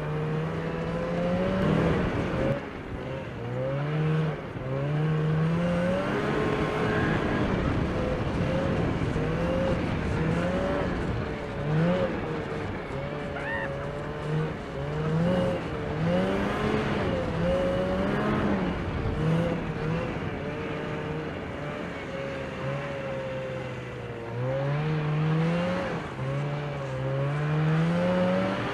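Engine of the vehicle towing the sofa sled, running continuously and repeatedly revving up and easing off.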